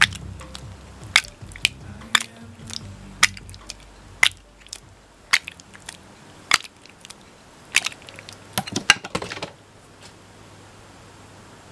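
Slime squeezed and worked in the hand, making sharp wet pops and squelches about every half second to a second, with a quick flurry just before they stop. Soft background music fades out in the first few seconds.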